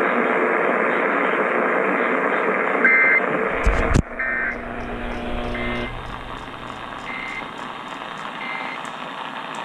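AM radio reception hiss, cut short about four seconds in, with short buzzy two-tone data bursts of the Emergency Alert System code repeating every second or so, typical of the end-of-message signal after an alert.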